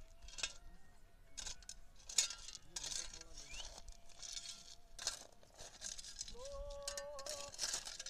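Yak-drawn plough working stony soil, with repeated short scraping and crunching of earth and stones. About six seconds in, a voice calls out one long held note.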